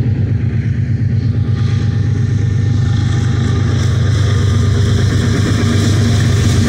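Approaching GE ES44C4 diesel-electric freight locomotive: its 12-cylinder GEVO engine makes a steady low drone that grows a little louder toward the end as the locomotive nears.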